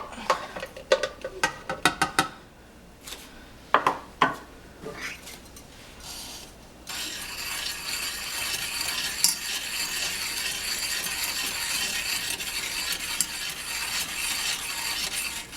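Spoons clinking against a metal saucepan. From about seven seconds in comes a steady scraping as a spoon stirs cocoa powder, sugar and a little milk into a thick paste in the pan.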